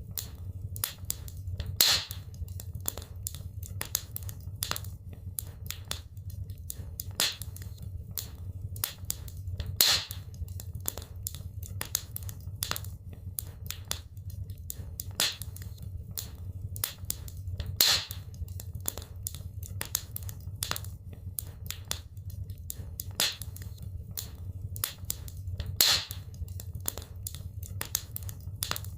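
Wood fire crackling, with many small irregular crackles, a louder pop about every eight seconds, and a steady low rumble underneath.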